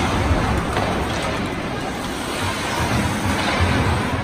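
Ice hockey arena ambience: a steady noisy wash of rink and crowd noise with a low, uneven rumble, and no clear voices.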